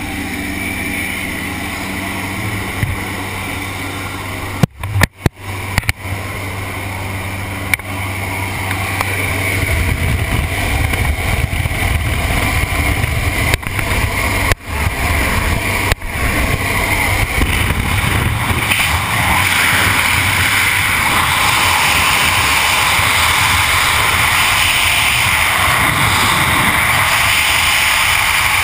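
Propeller jump plane's engine droning in the cabin. After about ten seconds the drone gives way to rising wind rush at the open door, which becomes steady freefall wind noise on a helmet-mounted camera from about twenty seconds in.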